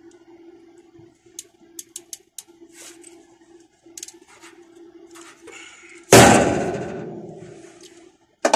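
Small sharp clicks of pliers working thermostat wire, then about six seconds in a loud metallic clang that rings and fades over about two seconds, and a second, shorter knock near the end, over a steady low hum.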